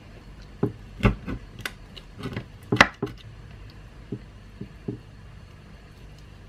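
Light knocks and clicks of a knife and fingers working a raw leg of lamb in a glass baking dish, about ten in the first five seconds, the loudest a little under three seconds in.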